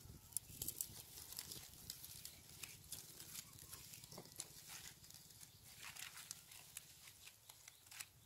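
Faint, irregular crackling and ticking of a small smouldering fire of dry straw and palm fronds.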